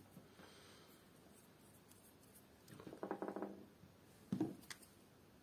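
Small handling sounds of a power cable and hand tools on a tabletop: a short rattle about three seconds in, then a single knock and a faint click a second later.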